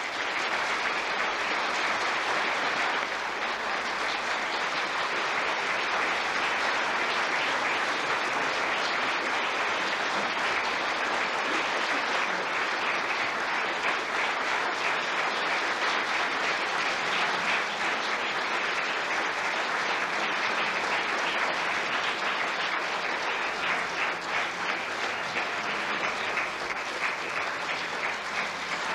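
A theatre audience applauding: dense, steady clapping.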